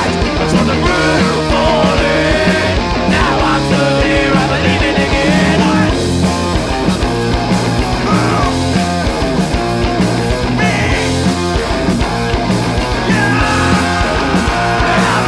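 Punk rock band playing live, an instrumental passage: electric guitars and bass over a steady drum beat.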